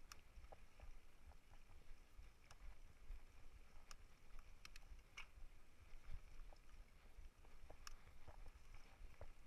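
Faint ride noise of a bicycle on a dirt forest trail: a low rumble with scattered light clicks and rattles several times.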